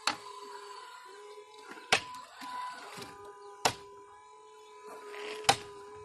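Remote-control hydraulic model excavator working, its hydraulic pump giving a steady whine. Four sharp knocks come about every two seconds as the boom and bucket move and dig into dirt and stones.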